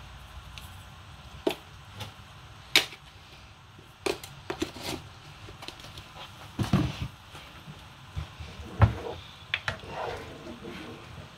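Cooking utensils knocking and clattering against a pot of soup: a spoon adding powdered seasoning and a ladle stirring, giving about a dozen sharp knocks at irregular intervals, the loudest about three and nine seconds in, over a low steady hum.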